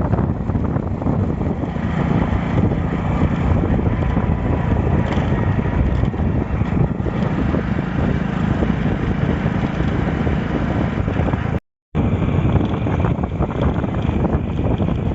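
Heavy diesel machinery engine running steadily under load, a low, dense rumble; the sound cuts out completely for a moment about three-quarters of the way through.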